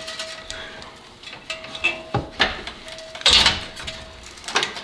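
Scattered knocks, clunks and scrapes of an aluminium radiator and fan-shroud assembly being worked down into place in a BMW E36's engine bay. The loudest clatter comes about three and a half seconds in.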